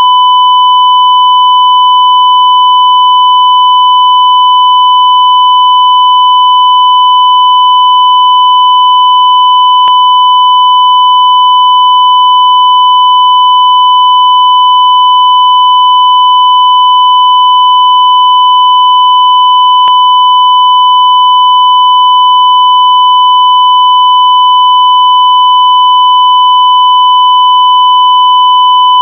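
Censor beep: one loud, steady, high-pitched beep tone held without a break, with faint clicks about every ten seconds.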